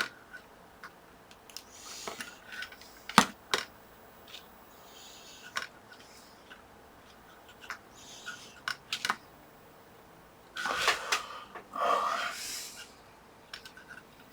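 Desoldering work on a circuit board, clearing solder from a through-hole: small sharp clicks and taps of tools, with short hissing bursts and a longer, louder hiss about eleven seconds in.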